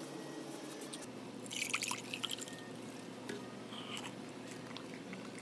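Close mouth sounds of eating and drinking: a cluster of wet clicks and smacks about one and a half to two and a half seconds in, then a short sip from a mug near four seconds, over a faint steady background hum.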